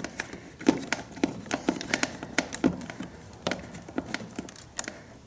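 Irregular small clicks and taps, two or three a second, of a screwdriver turning a mounting screw to fasten a twist-lock receptacle into a generator's plastic control panel, with hands knocking against the panel.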